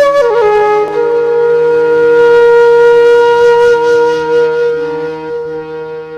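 Instrumental music: a single wind-like melody line bends down through a few notes, then holds one long note over a steady low drone, fading over the last two seconds.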